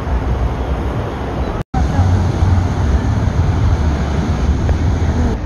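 Beach ambience: steady surf noise with wind buffeting the phone's microphone, and faint voices. The sound cuts out for an instant a little under two seconds in.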